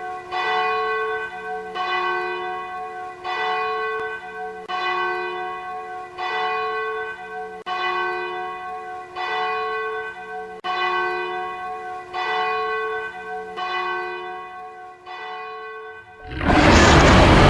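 A large bell tolling steadily, about one stroke every second and a half, each stroke ringing on and fading. The strokes weaken near the end, and then a much louder rushing noise suddenly cuts in.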